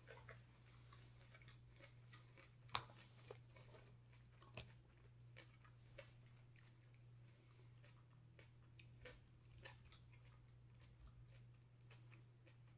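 Faint chewing of a mouthful of salad: soft, irregular mouth clicks and crunches, one sharper crunch a little under three seconds in, over a steady low hum.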